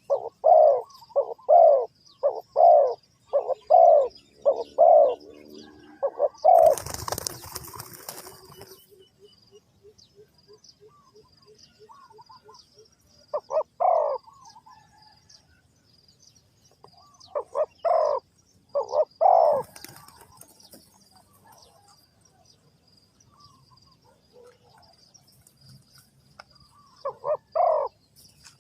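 Spotted dove cooing: a quick run of deep coos, then short phrases of two to four coos with long pauses between them. A burst of wing flapping comes about seven seconds in.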